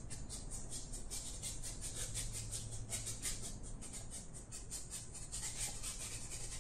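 Small paintbrush stroking and dabbing acrylic paint onto a stretched canvas: a rapid series of short scratchy brush strokes, several a second.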